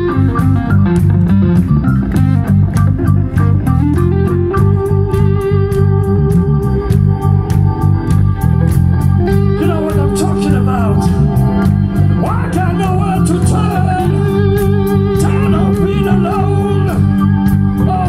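Live band playing: electric guitar over a Nord Stage keyboard and a steady drum beat.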